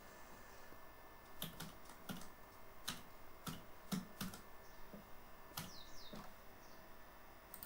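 Faint computer keyboard keystrokes as text is typed: about a dozen separate taps, spaced irregularly a few tenths of a second to about a second apart.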